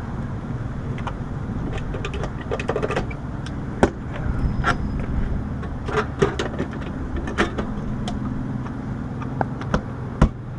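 Steady low hum of running air-conditioning equipment, with scattered clicks and knocks of hands working on a unit's wiring and panel; the sharpest knock comes near the end.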